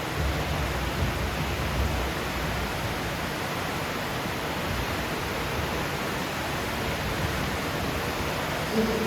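Steady, even rushing noise of the ride's greenhouse ambience, with running water beneath the slow-moving ride boat.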